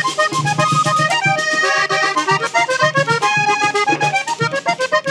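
Vallenato paseo played on a red Hohner Corona III button accordion, a quick run of short melody notes, with caja drum strokes and the scraped guacharaca keeping the beat.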